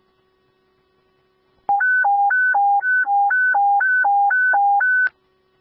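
Fire dispatch alert tone over a scanner radio: a loud hi-lo alternating two-tone signal, switching about four times a second, starting about a second and a half in and stopping sharply about three and a half seconds later. It signals a dispatch alarm to fire units. A faint steady radio hum runs underneath.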